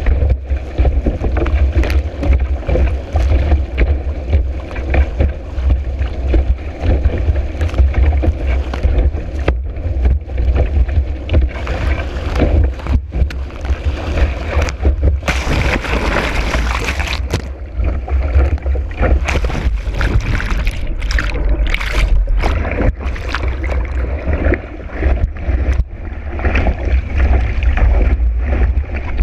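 Kiteboard skimming fast over choppy water in high wind: heavy wind rumble buffeting the microphone over the rush and slap of water against the board. A louder, hissier stretch of a couple of seconds comes about halfway through.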